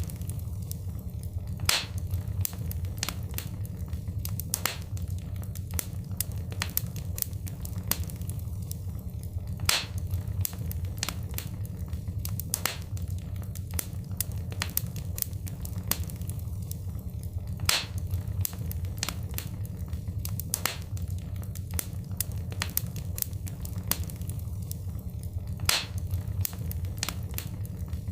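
Fire crackling in a fireplace: a steady low rumble of flames under frequent sharp crackles and pops, with a louder pop about every eight seconds.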